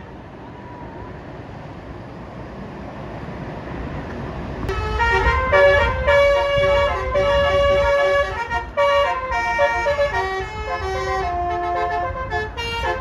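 A bus approaching, its engine and road noise slowly growing louder. About five seconds in its telolet basuri horn starts, loud, playing a quick melody of changing notes.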